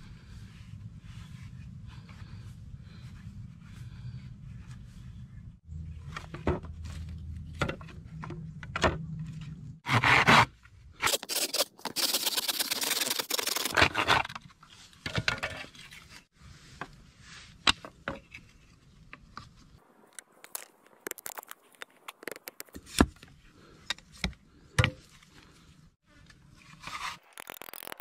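Hand saw cutting through a bamboo pole in rapid strokes for a few seconds around the middle, the loudest sound here, among scattered knocks and scrapes of wood and bamboo being handled and fitted.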